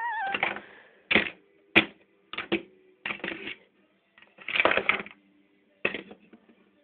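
The end of a child's voiced horse whinny wavers and falls away at the start, then plastic model-horse hooves clack on a wooden surface: uneven single taps and short rattling clusters, with one sharp click about two seconds in.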